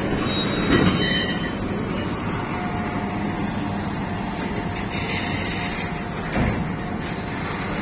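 Old Mercedes-Benz truck's diesel engine running steadily under load while it hauls a string of heavy railway wagons, with a continuous rumble and a couple of brief clunks.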